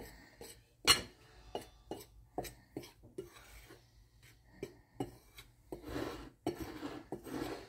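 A metal fork stirring dry flour mix in a ceramic bowl: scraping through the flour with irregular clinks of the tines against the bowl. There is one sharper clink about a second in, and denser, steadier scraping near the end.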